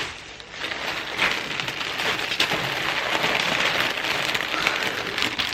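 Plastic bags of LEGO parts being rummaged through and handled: continuous crinkling with many small plastic clicks and rattles.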